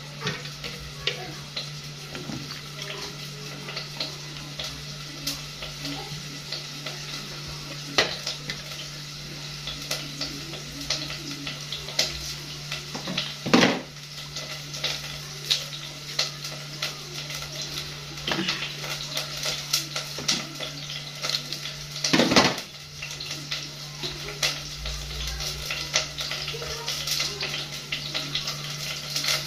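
Light clinks and knocks of a knife and kitchen utensils on a stainless steel sink and drainer, scattered throughout, with a louder clatter about halfway and another about three-quarters of the way through, over a steady low hum.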